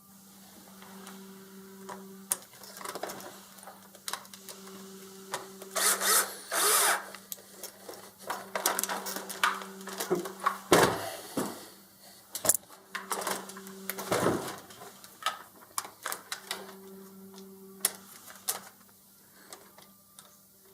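Screws and M4 lock nuts being tightened on an RC truck's wheelie bar mount. A small power tool runs in short spells of a second or two, about five times, with clicks and rattles of tools and metal parts between them.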